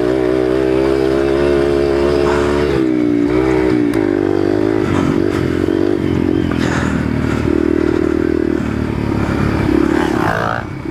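Dirt bike engine running hard, its pitch rising and falling with the throttle, then holding lower and steadier in the second half.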